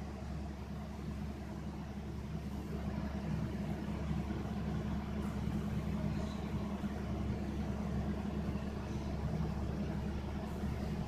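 A steady low hum at an even level throughout.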